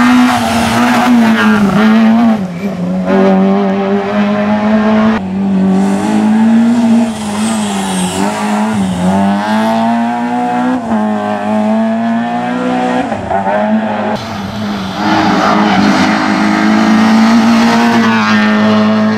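Peugeot 106 rally car's engine revving hard through corners, its pitch climbing and dropping with throttle lifts and gear changes. The sound cuts abruptly several times from one pass to the next.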